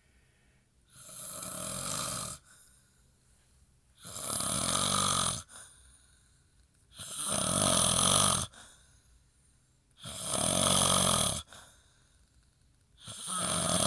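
A sleeping man snoring heavily: five long, rattling snores, about one every three seconds, with silence between breaths.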